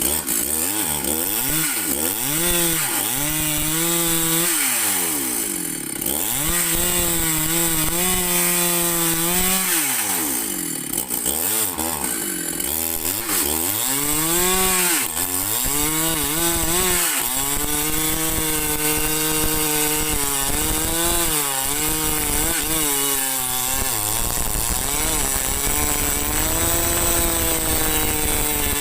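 Husqvarna 395 two-stroke chainsaw cutting into a cengal tree. The engine pitch sags repeatedly as the chain bites into the wood and recovers between, then holds a steadier note for the last few seconds.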